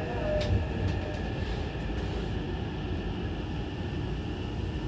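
Inside a Hankyu train car, steady low running noise as the train rolls slowly along the station platform, with a faint steady high whine and a couple of faint clicks in the first second.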